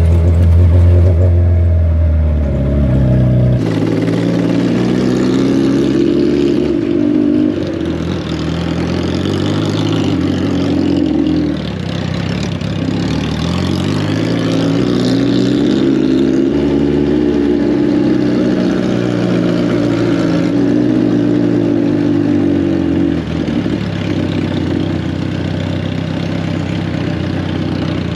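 Motorcycle engine running under way off-road, its revs climbing and falling several times. A heavy low rumble fills the first three and a half seconds and stops abruptly.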